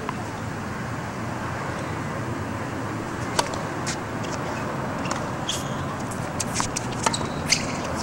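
Tennis balls being struck and bouncing on a hard court: a few sharp pops, one a few seconds in and a quicker cluster near the end, over a steady hiss of outdoor background noise.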